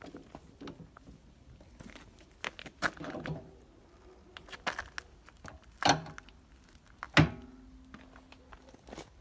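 Scattered clicks and knocks with some rustling, the loudest knocks just before six seconds and about seven seconds in; a short low hum follows the second one.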